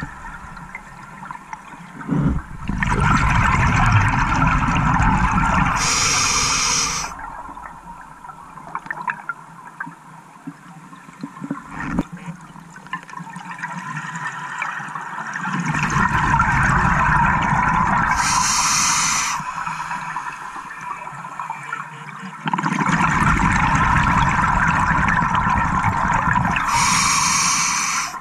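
Scuba regulator breathing heard underwater: three long rushes of exhaled bubbles several seconds apart, each ending in a brief high hiss, with quieter water noise between breaths.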